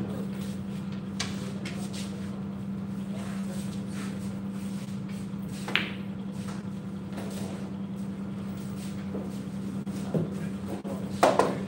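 Pool balls clacking once, sharply, about halfway through as a shot is played on a pool table, over a steady low hum in the room.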